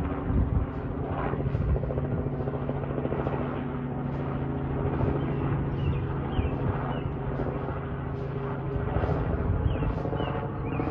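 Light two-bladed helicopter flying overhead, its engine and rotor making a steady drone.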